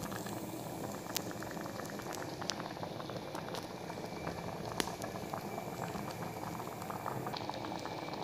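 Thick dal curry boiling in an open steel pressure cooker pot: a steady dense bubbling and popping, with a few sharper pops.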